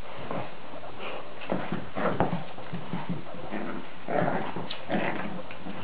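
A French bulldog and a chihuahua tussling on a hard floor: irregular clicks and taps of claws and paws, mixed with short, soft noises from the dogs.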